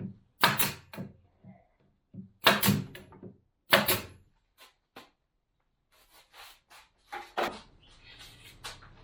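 Knocks and clatters of wooden cabinet parts being handled: three loud knocks in the first four seconds, then lighter taps and clicks, one sharper knock near the end.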